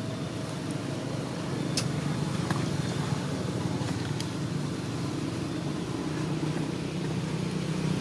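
Steady low rumble of background noise, with a few faint sharp clicks about two and four seconds in.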